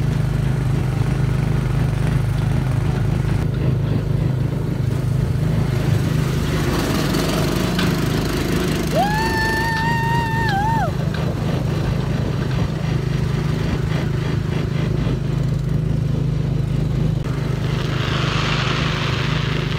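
Small gasoline engine of a go-kart-style ride car running steadily under way, a constant low drone. A short held high tone cuts in about halfway through.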